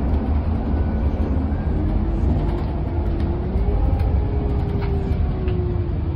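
Ride noise inside a moving city bus: a steady low rumble of engine and road. Over it runs a faint whine that climbs a little in pitch about two to three seconds in and then eases, with a few light rattles near the end.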